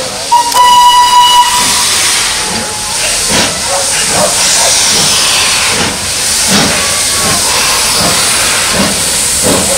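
The whistle of the FS Gr 640.003 steam locomotive sounds one blast of about a second, a little after the start, over a loud steady hiss of escaping steam. Repeated short puffs run through the hiss for the rest of the time.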